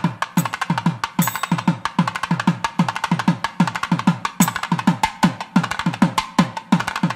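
Percussion-led background music: a fast, steady drum beat of about three low drum hits a second, with sharper clicking strokes between them.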